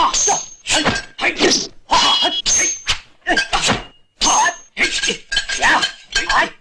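Dubbed sound effects of metal weapons clashing in a kung fu fight, an axe against a bladed polearm: a quick run of sharp metallic clangs and whacks, about one and a half a second, several ringing briefly.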